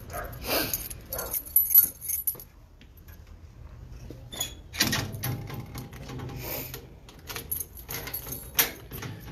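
Footsteps in sneakers on a concrete floor, with rattling and clicking as the phone is carried, in irregular bursts with a quieter stretch about three seconds in.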